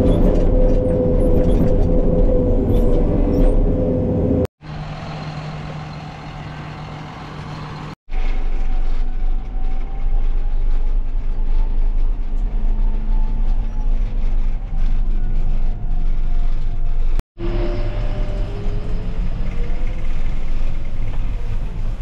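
Engine of a farm machine running steadily. The sound cuts off abruptly three times where short clips are joined, and one stretch from about four to eight seconds in is quieter.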